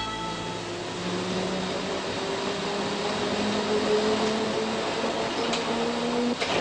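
Steady mechanical whirring noise with a faint low drone that creeps slightly up in pitch and stops just before the end; the last notes of music die away at the start.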